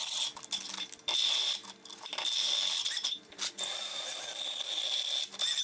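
Cordless drill boring holes in a steel frame, running with a steady high whine in about four bursts broken by short pauses.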